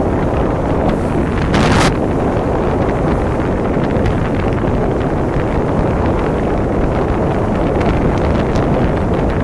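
Rigid inflatable speedboat running fast across open water: heavy wind buffeting on the microphone over the rush of water along the hull, with a short louder hiss at about two seconds in.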